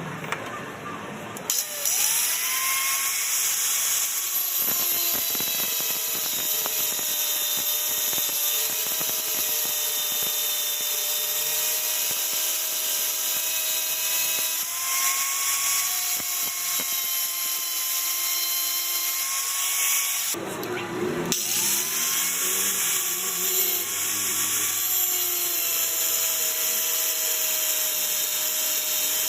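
A high-speed electric power tool running, starting up about a second and a half in with a rising whine, its pitch sagging at times as it works, then switched off for about a second near two thirds of the way through and started up again.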